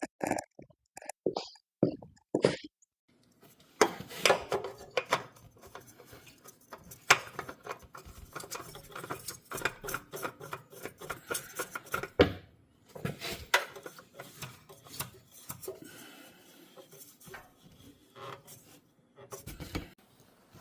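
Irregular clattering: many sharp knocks and clicks with rubbing and scraping of objects being handled, busiest from about four seconds in.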